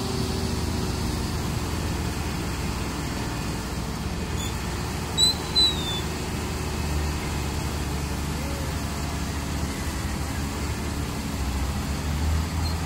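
Heavy diesel engines running with a steady low rumble as a dump truck's hydraulic hoist raises its loaded bed to tip sand, with a bulldozer working on the pile behind. Two short high-pitched chirps come about five seconds in, and a motorcycle passes near the end.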